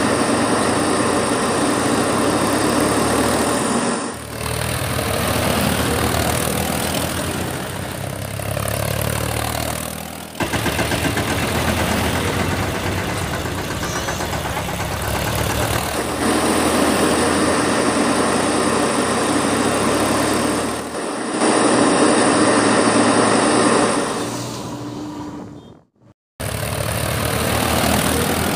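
Vehicle engine running and idling steadily, in stretches that change abruptly every few seconds. It cuts out briefly near the end.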